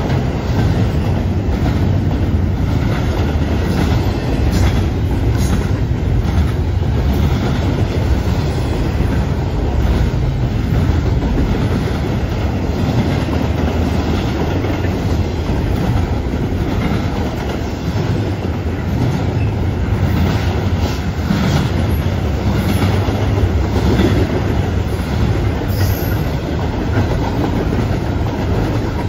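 Double-stack intermodal freight cars rolling past at close range: a steady, loud rumble with the wheels clacking over the rails.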